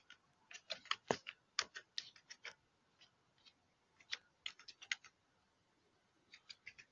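Computer keyboard being typed on: faint key clicks in uneven bursts, with short pauses between them.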